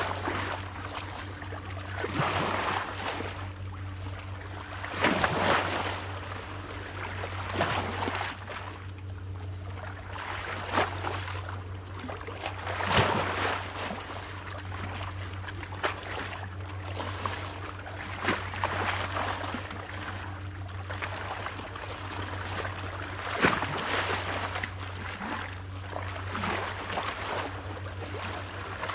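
Small waves splashing against rocks: irregular surges of splashing every two to three seconds, a few stronger slaps among them, over a steady low hum.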